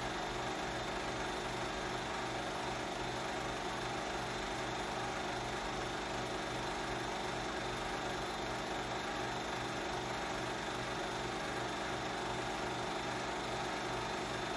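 Film projector running: a steady mechanical whirr with an even low pulsing that does not change.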